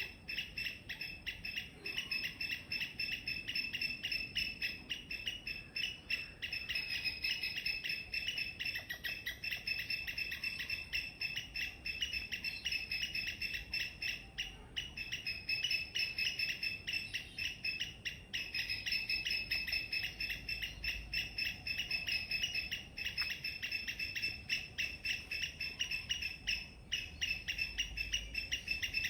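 A squirrel chirping: a rapid, steady run of short high-pitched chirps, several a second, broken only by a few brief pauses.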